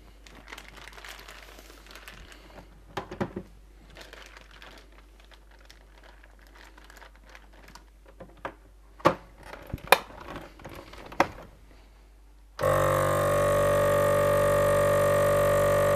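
Plastic dry-aging bag crinkling as it is handled and set into a CASO vacuum sealer, with a few sharp clicks past the middle. Near the end the sealer's vacuum pump starts and runs with a loud steady hum, drawing the air out of the bag around the beef.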